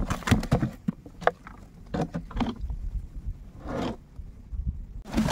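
Irregular knocks, clicks and scrapes from gear being handled on a raft in water, with a short splash-like rush about four seconds in.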